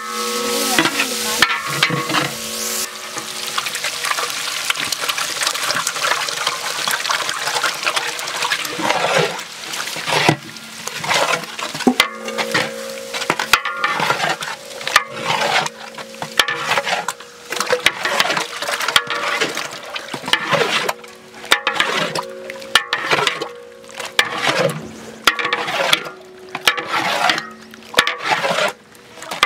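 A long-handled flat metal spatula stirring and scraping a large batch of beaten eggs and fried onions in a big aluminium pot, in irregular strokes about once a second, over the sizzle of frying. A loud hiss fills the first few seconds.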